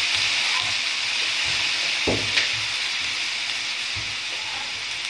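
Chicken pieces sizzling in a hot stainless-steel pan with onion and carrot, the steady sizzle slowly easing. A wooden spoon stirs and knocks against the pan a few times, with a sharp click about two seconds in.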